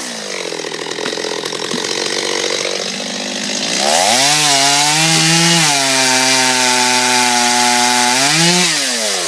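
49cc two-stroke chainsaw cutting into wood to take out a wedge-shaped notch. The engine note sags as the chain bites under load, picks up about four seconds in and again near the end, then drops back down.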